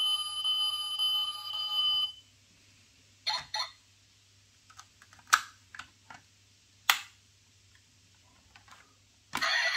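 The diecast toy truck's built-in sound module plays a steady electronic tone through its small speaker and cuts off about two seconds in. Several sharp clicks and light scrapes follow as the metal toy is handled, and a loud, noisy sound from the toy begins near the end.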